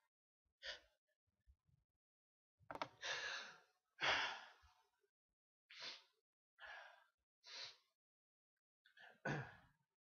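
A person's breath hitching: about eight short, sharp gasping breaths, the loudest about four seconds in and another strong one near the end, the catching breaths of a sneeze building.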